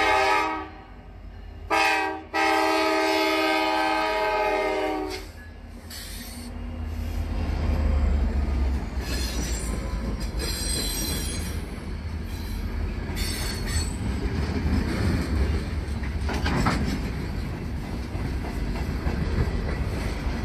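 Alaska Railroad freight locomotive horn sounding for the crossing: a blast ending about half a second in, a short toot near two seconds, then a long blast of about three seconds. Then the rumble and clatter of a long string of freight cars rolling past, with brief wheel squeals and a single clank.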